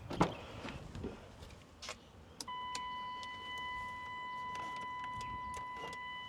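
A few clicks and knocks, then a click about two and a half seconds in and a Mitsubishi Pajero's dashboard warning buzzer sounding as one steady high-pitched tone, typical of the key-in or lights-on reminder with the driver's door open.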